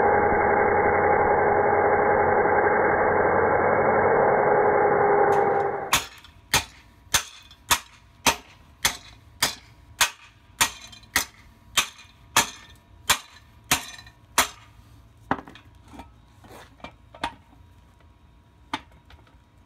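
An angle grinder with a cut-off wheel runs steadily for about six seconds, cutting into a steel axle tube. Then a hammer strikes a steel bracket on the axle tube about twenty times, nearly two blows a second, and the blows grow sparser toward the end.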